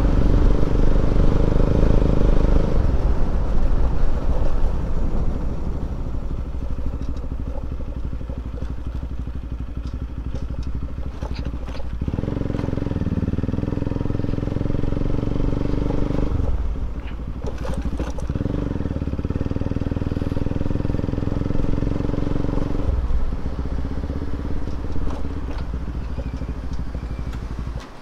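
Motorcycle engine running steadily while riding, a low hum that drops away and returns a few times.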